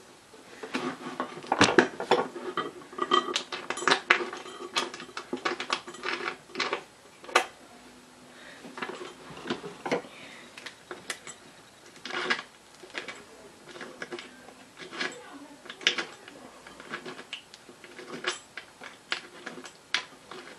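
Small metal hardware clinking and clicking at irregular intervals as screws are handled and fitted into the metal plate on the underside of an office chair seat.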